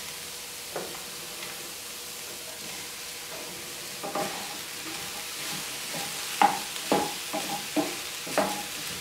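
Chopped vegetables sizzling softly in a dry non-stick pan, sautéed without oil, as they are stirred with a wooden spatula. From about four seconds in there are several short clacks and scrapes of the spatula and vegetables against the pan, most of them in the last three seconds.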